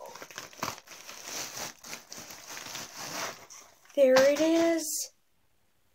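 Plastic bubble mailer and packaging crinkling and rustling as a jersey is pulled out. About four seconds in, a loud, drawn-out excited vocal exclamation lasts about a second.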